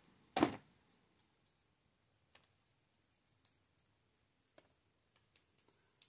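Sparse light clicks and taps of a hard resin casting being worked out of a black silicone mold, with one louder short rustling scrape about half a second in.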